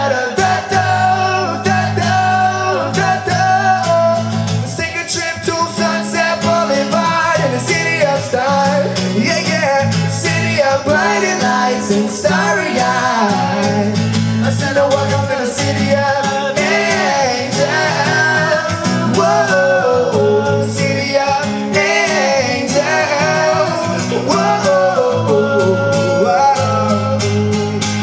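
Live acoustic pop performance: an acoustic guitar strummed under male singing into microphones.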